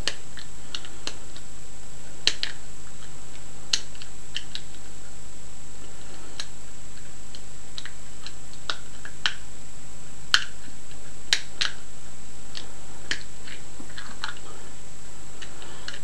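Irregular light metallic clicks and ticks of a wire pick being worked inside an old lever padlock, with the lock being turned in the hand. A steady hum and a faint high whine sit underneath.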